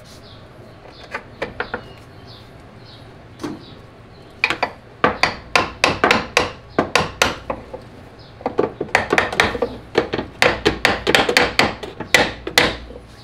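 A hammer striking the upper control arms' ball-joint pins to drive them down into the steering knuckle of an Audi B5 S4's front suspension. A few single taps come first, then from about four seconds in, rapid runs of strikes at about three to four a second.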